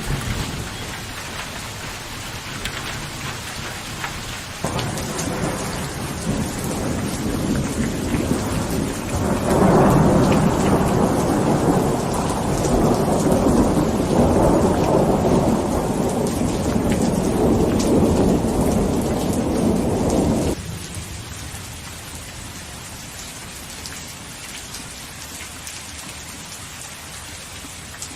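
Steady heavy rain falling, with a long rolling rumble of thunder that builds from about five seconds in, is loudest through the middle, and cuts off suddenly about two-thirds of the way through, leaving the rain alone.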